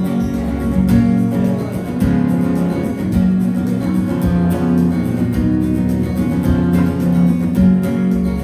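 Music: acoustic guitar strumming a steady rhythm in an instrumental passage of a folk-pop song, with no singing.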